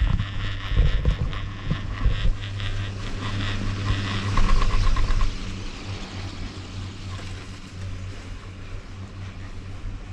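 Chairlift ride: steady low hum and rumble of the lift's haul cable and chair, with wind on the microphone. The rumble is louder for the first five seconds, then drops to a steadier hum.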